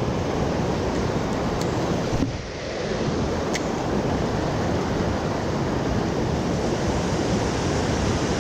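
Fast-flowing river water rushing steadily, with a brief dip in level a little over two seconds in.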